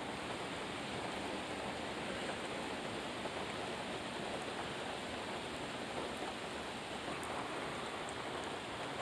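Heavy rain falling steadily in a downpour, an even hiss with no break.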